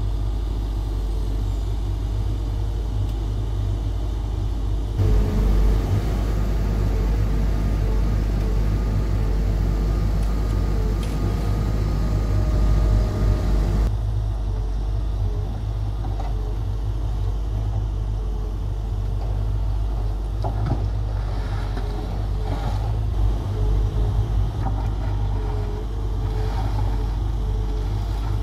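Volvo EW140D wheeled excavator's diesel engine running steadily with its hydraulics working while it digs a cable trench. It grows louder and fuller under load for several seconds, and short knocks and scrapes of the bucket in soil and stones come near the end.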